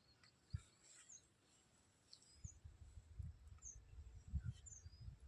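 Quiet outdoor ambience with a few faint, short bird chirps. A soft low knock comes about half a second in, and a low, uneven rumble sets in about halfway through.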